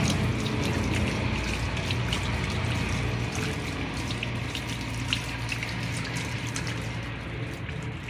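Tap water running over white radishes being rubbed clean by hand and splashing into a concrete sink. The flow grows quieter near the end as the tap is turned down.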